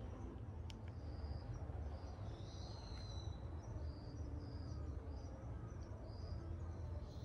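Outdoor ambience: repeated short, high chirping calls over a steady low rumble on the microphone, with a couple of faint clicks about a second in.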